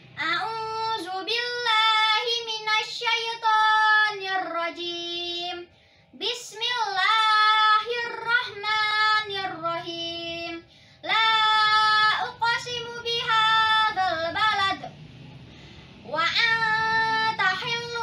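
A boy's voice chanting Quran recitation from memory in a melodic tilawah style, long drawn-out phrases separated by short pauses for breath.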